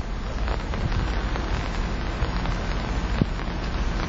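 Floodwater rushing down a concrete flood channel: a steady, even rush of water with a low rumble underneath.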